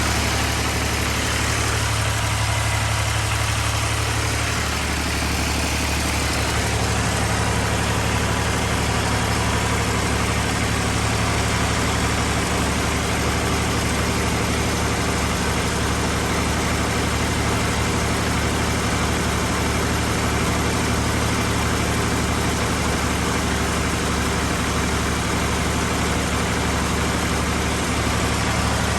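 Fiat 480 tractor's diesel engine running steadily, its low pitch dipping slightly about five seconds in.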